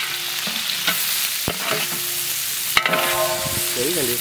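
Sliced onions frying in hot oil in a large aluminium pot, a steady sizzle, with a ladle stirring them and knocking against the pot a few times. A brief wavering pitched sound comes near the end.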